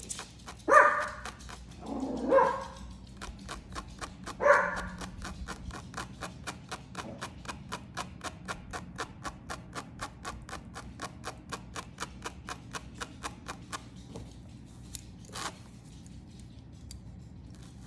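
A dog barks three times in the first five seconds. A fast, even run of small clicks follows, about four or five a second, and stops near the end.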